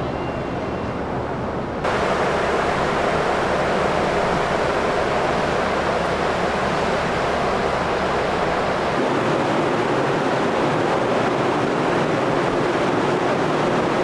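Steady loud rush of wind and sea noise on a ferry's open deck. It jumps abruptly louder about two seconds in, and its deep rumble drops away about nine seconds in.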